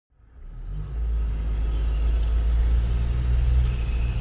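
Pickup truck driving, heard from inside the cab: a steady low rumble of engine and road noise that fades in over about the first second.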